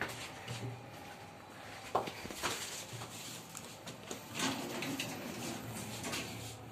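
A few scattered clicks and knocks inside a Sigma elevator car as the door-close button is pressed, over a faint low steady hum.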